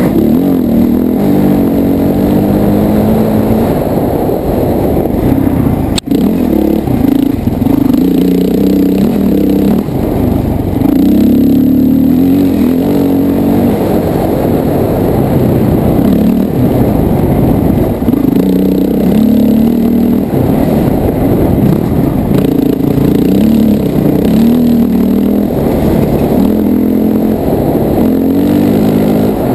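Honda CRF450X dirt bike's single-cylinder four-stroke engine, heard from a helmet-mounted camera, revving up and dropping back again and again as the rider accelerates and shifts on the trail. A brief sharp click cuts through about six seconds in.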